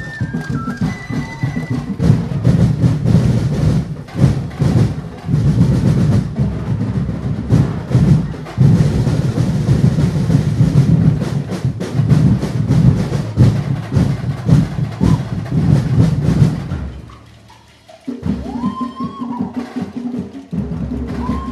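Street-festival drum and percussion ensemble playing a fast, dense, loud beat. The drumming breaks off about seventeen seconds in. After a short pause, a quieter passage follows with a held low tone.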